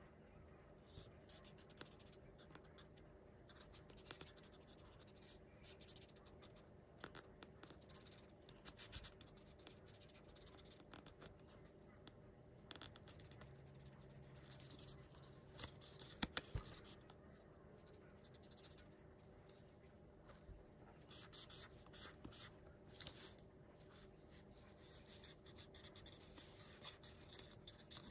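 Faint scratching of a felt-tip marker colouring on paper in short, irregular strokes, with one light knock about halfway through.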